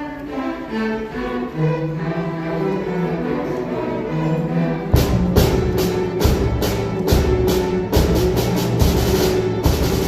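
A school orchestra playing with sustained string notes. About halfway through, drums and percussion come in with rapid, loud strikes over the held notes.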